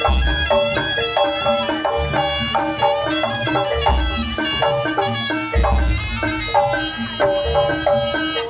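Javanese jaranan music: a fast, repeating melody of ringing metallophone notes over deep drum and gong strokes, accompanying the dance.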